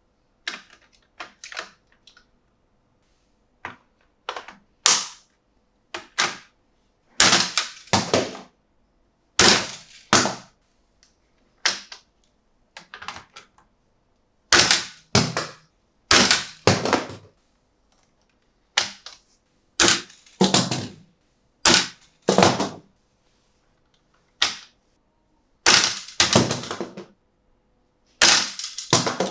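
Hands handling a toy monster truck and its plastic and cardboard packaging: an irregular run of sharp clicks, taps and short crackles, some in quick clusters, with brief pauses between.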